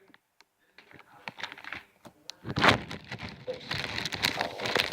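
Handling noise from small craft supplies: after a brief silence, scattered light clicks, one louder knock about two and a half seconds in, then crinkling.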